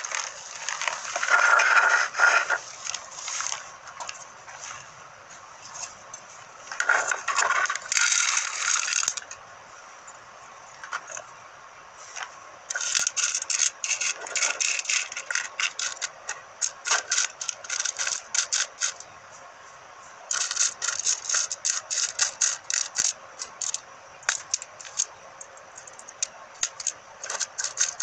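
Loose electronic components (resistors, capacitors, transistors) clicking and rattling against each other and the plastic multimeter case as fingers stir through the pile, in rapid runs of small clicks in the second half. Scraping, shuffling noise comes in short bursts in the first few seconds.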